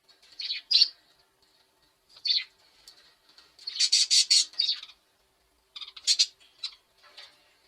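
Bird chirping in short, high-pitched calls that come in several bouts, with a quick run of chirps about four seconds in.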